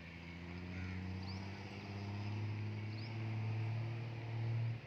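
Murrah water buffalo giving one long, low moo that grows louder and stops abruptly near the end. Small birds chirp briefly every second or so in the background.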